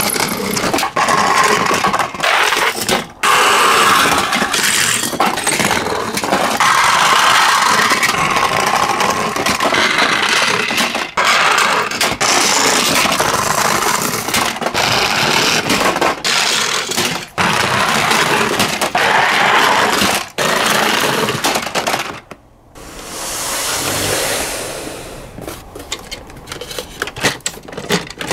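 Toy ambulances rolling down a wooden ramp track, their wheels rumbling and rattling on the wood, with short breaks between runs. Near the end there are sharp clicks of toy cars knocking together.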